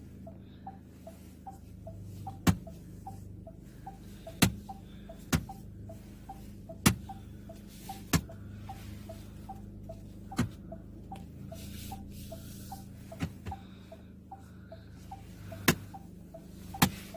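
SsangYong Rexton Sports turn-signal indicator ticking steadily, a little under three ticks a second, while sharp, louder clicks come from the steering wheel every second or few, over a low steady hum. The clicks are the noise this model makes when the wheel is turned after the indicator has been used, which the dealer calls normal.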